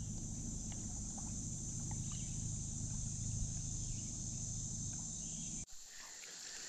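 Insects calling in a steady, unbroken high drone, over a steady low hum while the kayak moves along the river. Near the end both drop sharply at a cut, and the insects carry on more faintly.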